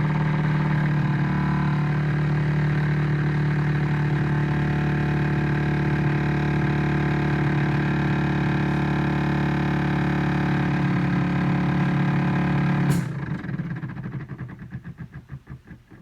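Refrigerator running with a loud, steady hum. After about thirteen seconds it cuts out with a click, followed by a pulsing rattle that fades as the motor winds down.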